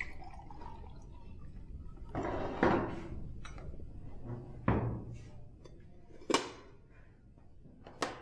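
Tableware and chair sounds at a dining table: a short rush of noise about two seconds in, then sharp knocks and clunks a second or two apart as a metal jug is set down and a chair is moved.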